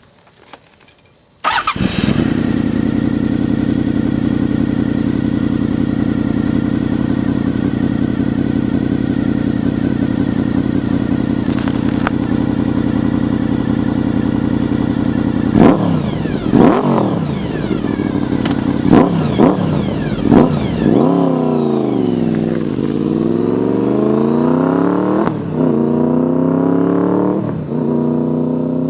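Honda VFR750F's V4 engine running through an aftermarket slip-on exhaust: it comes in abruptly about a second and a half in and idles steadily, then is blipped sharply several times and revved up and down repeatedly near the end.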